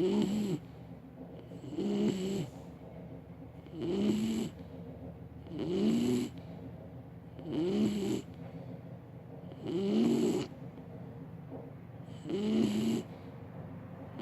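English bulldog snoring in its sleep, a snore about every two seconds.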